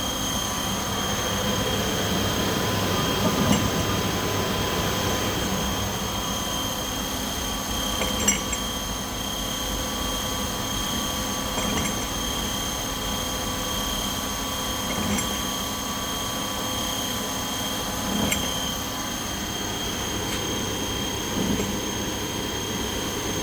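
Steady machinery hum with several constant high whine tones, and a few light knocks a few seconds apart.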